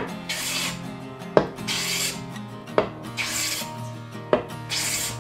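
Low-angle jack plane shaving a walnut board in four rasping strokes about a second and a half apart. Each stroke is preceded by a sharp knock. Background music plays faintly underneath.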